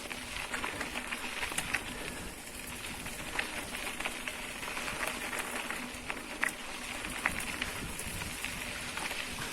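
Tyres rolling and splashing over a wet, muddy dirt track: a steady rush with scattered clicks and rattles.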